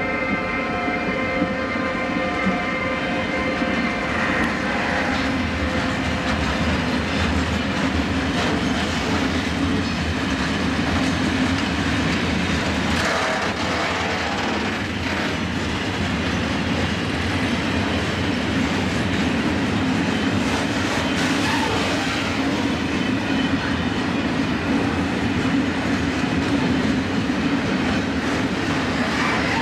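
Freight train of tank wagons, hauled by a Hellenic Railways class 120 electric locomotive, rolling past close by: a steady loud rumble of wheels on rail with scattered wheel clicks. A set of steady tones from the passing locomotive fades out in the first few seconds.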